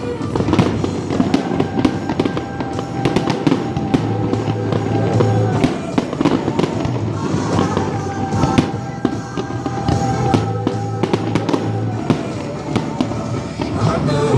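Fireworks bursting and crackling in quick succession, with many sharp bangs, over the music played with the display.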